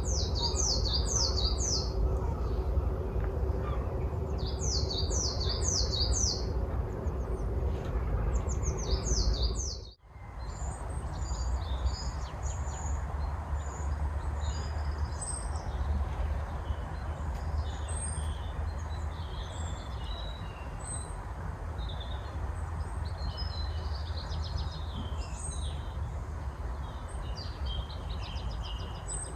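Woodland birds singing and calling: in the first part one bird repeats a quick phrase of falling high notes, then after a brief drop-out about ten seconds in, many short chirps come from several birds. A steady low rumble lies underneath throughout.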